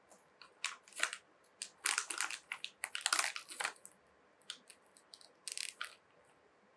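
Clear plastic bag crinkling in a string of irregular sharp crackles as cut mango is handled inside it, busiest in the middle.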